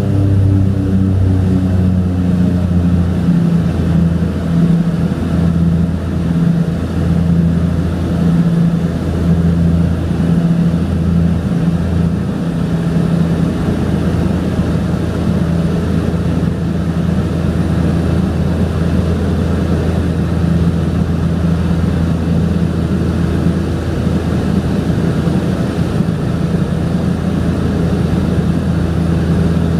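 Cabin drone of a de Havilland Canada DHC-6-300 Twin Otter in cruise: its two Pratt & Whitney PT6A turboprop engines and propellers make a steady, loud hum. A slow throb in the hum dies away about twelve seconds in, leaving an even drone.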